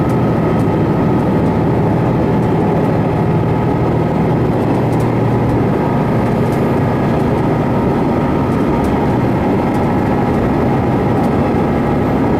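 Sanriku Railway diesel railcar running at speed, heard from inside the car: a steady engine drone mixed with wheel and rail noise.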